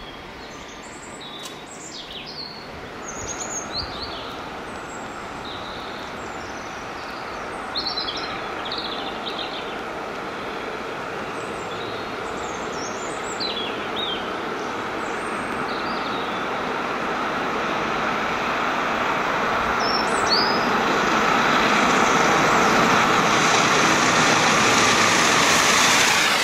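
Steam locomotive 60163 Tornado, a three-cylinder A1 Pacific, approaching along the line, its sound swelling steadily into a loud rush of steam and train noise as it passes close by near the end. Small birds chirp over the first half.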